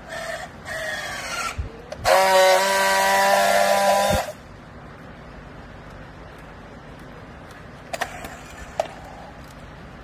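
Battery-powered handheld strapping tool on plastic strap: its tensioning motor whirs twice with a falling pitch, then it buzzes steadily and loudly for about two seconds while friction-welding the strap, cutting off suddenly. A couple of light clicks follow near the end.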